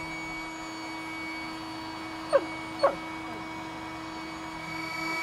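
A dog gives two short yelps about half a second apart, each falling in pitch, over a steady mechanical hum.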